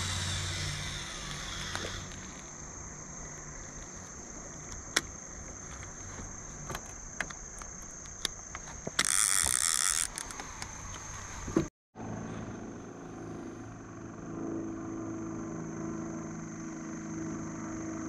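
Baitcasting reel spool whirring and slowing down as a live bluegill is cast, followed by scattered clicks and knocks of handling gear in an aluminium jon boat. A steady high insect drone runs underneath, and a loud burst of hiss lasts about a second near the middle.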